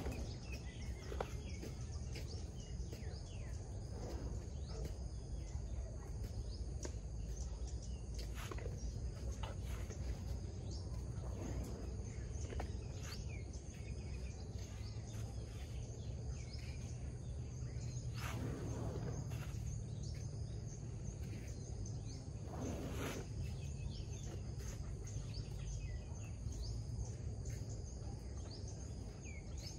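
Rural outdoor ambience: a steady high insect drone and scattered bird chirps over a steady low rumble, with two brief rushing noises in the second half.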